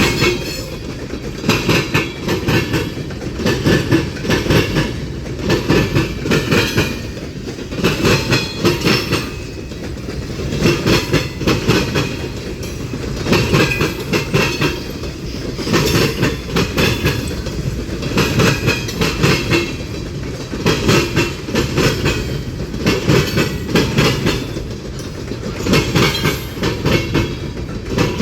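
Freight train cars rolling past, their wheels clacking over the rail joints in groups of clacks about every two and a half seconds, over a steady rumble.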